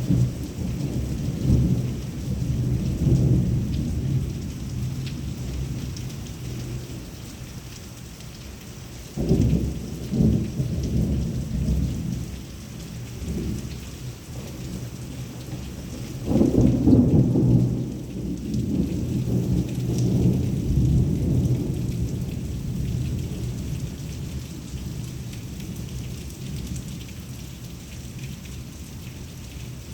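Thunder rumbling in long rolling peals, swelling at the start, about nine seconds in and again about sixteen seconds in, each dying away slowly, with heavy rain falling steadily beneath.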